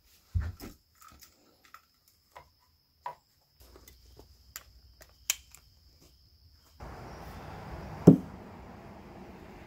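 Light scattered clicks and knocks of gear being handled, then a steady rushing background from about two-thirds of the way in, and one sharp, loud hammer blow struck at a log.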